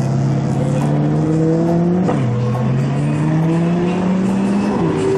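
A car engine accelerating through the gears: its pitch climbs steadily, then drops sharply at an upshift about two seconds in, climbs again, and drops at a second upshift near the end.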